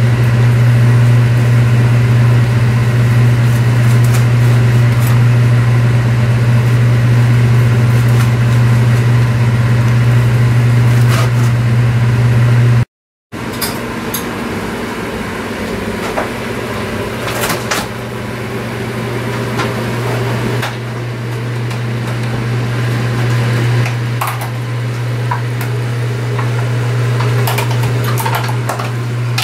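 A steady low machine hum fills the kitchen. It drops out for a moment about 13 seconds in, then goes on a little quieter. In the second half it is joined by scattered light clicks and knocks of dishes and utensils.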